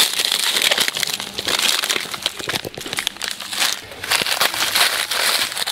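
Thin plastic food packaging crinkling and rustling as a hand handles and presses on bags, with many small crackles, coming and going in spells.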